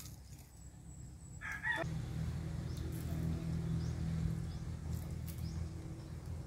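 A rooster crowing briefly about one and a half seconds in. After it comes a steady low hum.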